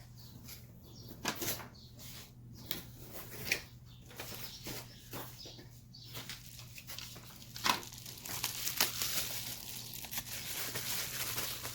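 Handling and unwrapping of packaging: rustling and crinkling with scattered small clicks and knocks, the rustling growing denser near the end.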